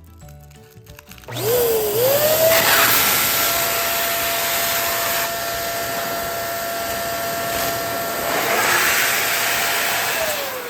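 Electric balloon inflator running: its motor spins up about a second in, blows air steadily for about nine seconds as a balloon is inflated, then winds down near the end.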